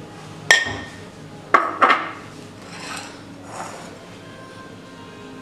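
Kitchen dishes clinking: three sharp clinks of glass or ceramic with a brief ring in the first two seconds, then a soft rustle of flour poured from a glass into a ceramic mixing bowl.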